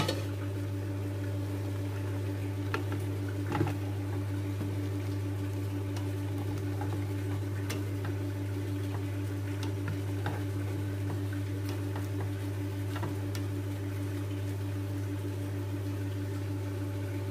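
Rice and shredded pork being stir-fried in a stainless steel pot, with a spatula stirring and scraping in scattered light ticks and knocks over a steady low hum.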